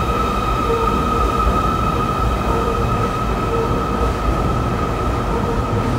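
Metro train moving along an elevated station platform: a steady low rumble under a constant high-pitched whine.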